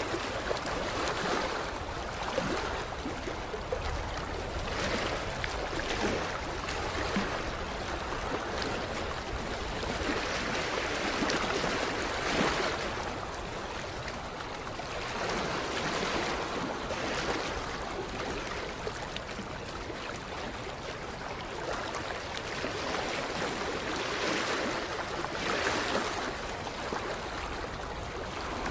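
Small waves of creek water lapping against the shoreline, a continuous wash that swells softly every two to three seconds.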